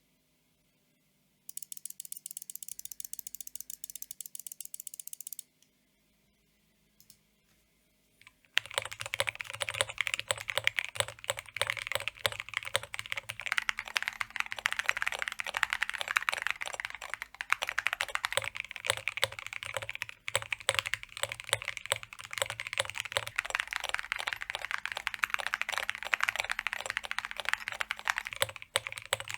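Custom mechanical keyboard with aluminum keycaps: a burst of fast, high, even clicking for a few seconds, a pause, then steady fast typing from about eight seconds in, continuing to the end.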